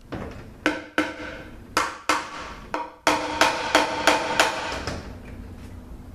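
A mallet striking the steel oil pan of a Toyota A340 automatic transmission about ten times, the pan ringing after each blow, as it is knocked loose from its silicone seal while pried with a bar. The blows come a second or so apart at first, then quicker and louder about halfway through, and stop shortly after.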